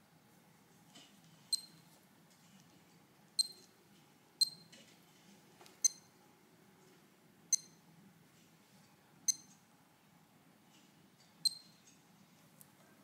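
Casio CMD-10 watch beeping as its buttons are pressed: seven short, high-pitched beeps, one to two seconds apart.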